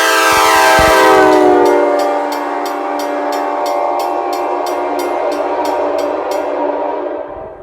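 Nathan Airchime K5LA five-chime train horn blowing its chord on air. The notes sag in pitch over the first couple of seconds, then hold steady before the horn dies away near the end.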